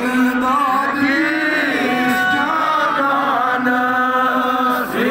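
A man's voice chanting a devotional recitation into a handheld microphone, in long held melodic notes that bend and glide in pitch.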